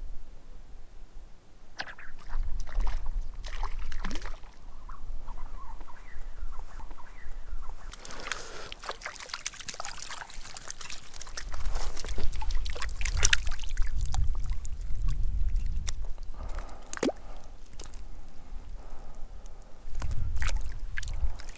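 Lake water splashing, sloshing and trickling in irregular spells, busiest through the middle, with scattered clicks and low rumbling underneath.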